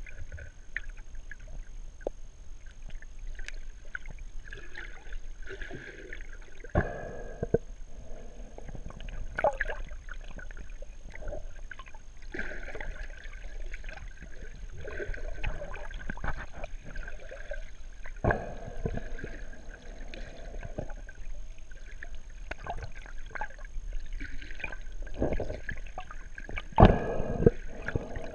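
Underwater sound heard through a GoPro's waterproof housing: a scuba diver breathing through the regulator, with bubbling exhalations that swell and fade every few seconds. Three sharp knocks come about 7, 18 and 27 seconds in.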